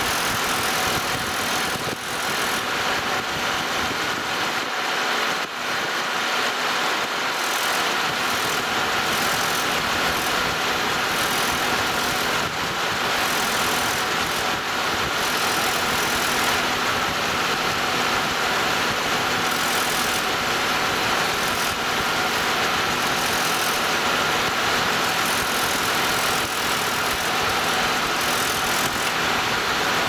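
A 2006 Chevrolet Malibu's engine idling, heard from beneath the car beside the exhaust pipe: a steady, even running noise with a faint steady hum.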